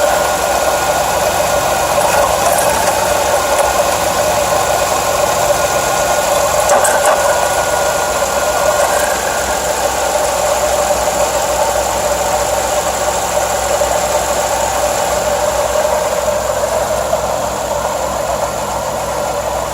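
Car engine running steadily at idle, with a loud, even rushing noise: the new noise whose cause the owner cannot identify.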